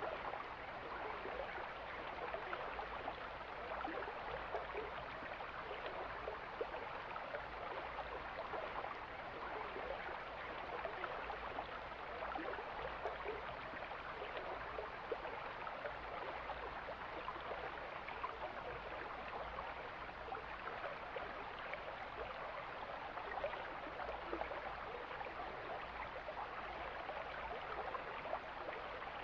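Mountain stream flowing steadily, an even rush and babble of running water.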